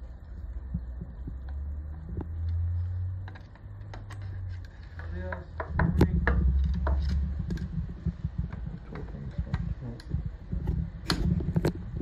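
Metal-on-metal clicks and taps of a hex key working the screws of an industrial sewing machine's feed dog holder, the loudest about halfway through and again near the end, over a low rumble of handling noise.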